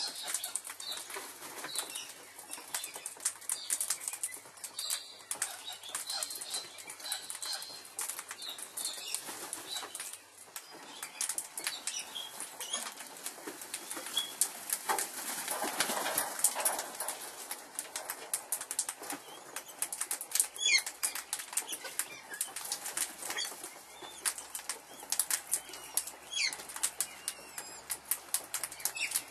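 Dense, rapid crackling and rustling, with a few short high bird chirps near the start and a few quick chirping calls later on.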